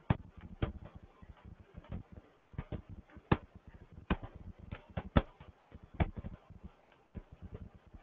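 Irregular keystrokes and clicks on a laptop keyboard, a few a second, with several louder taps among them.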